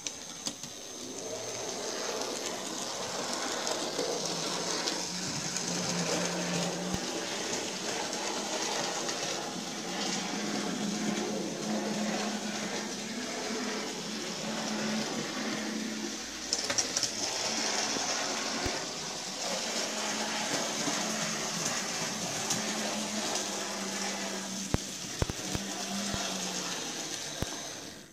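Graham Farish N gauge LNER Class B1 model steam locomotive running along the track: a steady electric motor whirr with wheel rumble, and a few sharp clicks about halfway through and again near the end.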